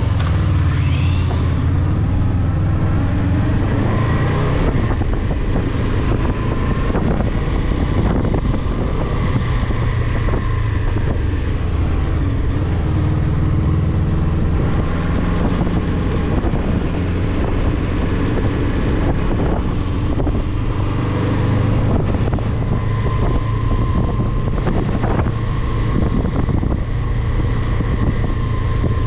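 Honda VFR800F motorcycle's V4 engine running on the move, its pitch rising and easing a few times, with wind rushing over the microphone.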